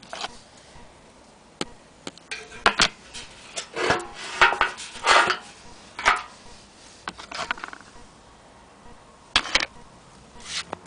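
Metal phonograph horn being handled: irregular knocks and clanks, some with a brief metallic ring, bunched together in the middle with a few more near the end.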